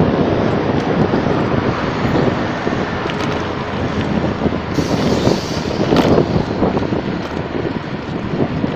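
Wind buffeting a phone microphone on a bicycle ridden fast along a highway, a loud, uneven rush of noise. About five seconds in, a brief, brighter hiss rises and falls away.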